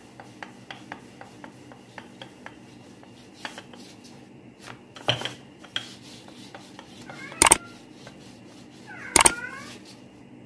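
Wooden rolling pin rolling out dough on a stone countertop, with light, fairly regular clicking as it rolls. There are three sharp knocks, about five, seven and a half and nine seconds in; the last two are the loudest.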